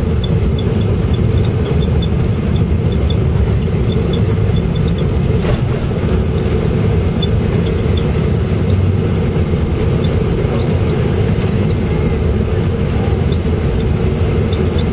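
Jet airliner cabin noise during the landing roll, with the ground spoilers raised: a steady loud rumble of engines and wheels on the runway, with faint light ticks scattered through it.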